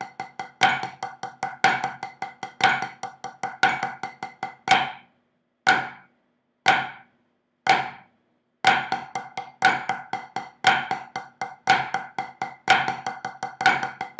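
Drumsticks playing a flammed five-stroke paradiddle exercise on a practice pad against a metronome clicking once a second (60 bpm). The sticking stops for about four seconds after about five seconds in, leaving only the metronome clicks, then starts again.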